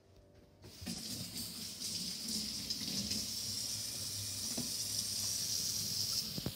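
Kitchen faucet running into a sink while hands are washed under it; the water comes on about a second in and runs steadily.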